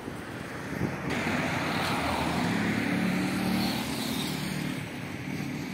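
A small motorcycle passing close by: its engine swells about a second in, is loudest around the middle, and fades away near the end.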